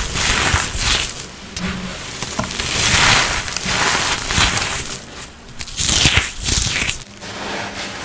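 Reformed holi colour powder being crushed in a mass, making crumbly crunches that swell up every two or three seconds, with small crackles in between.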